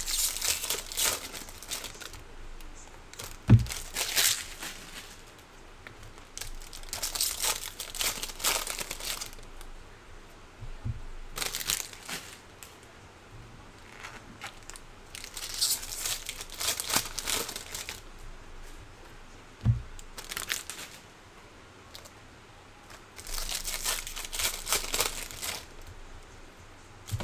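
Foil wrappers of 2024 Bowman baseball card packs being torn open and crinkled by hand, in bursts of a second or two with short pauses between. Two short thumps, the first about three and a half seconds in and the loudest sound, the second near twenty seconds.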